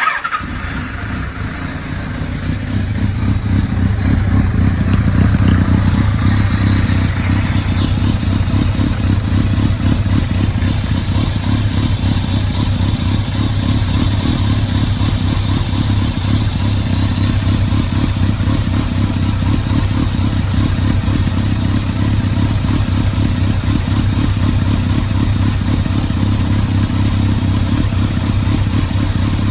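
Kawasaki ZRX1200S inline-four motorcycle engine running steadily through its replacement aftermarket silencer. The exhaust note cuts in abruptly, builds over the first few seconds, then holds even.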